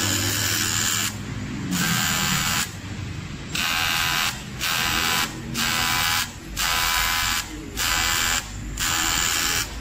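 Aluminium welding arc buzzing in short bursts of about a second each, switched on and off about eight times.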